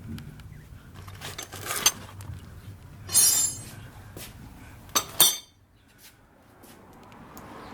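Metal car-jack tools clinking and rattling as they are handled: scattered light clinks, a louder rattle about three seconds in, and two sharp clinks about five seconds in.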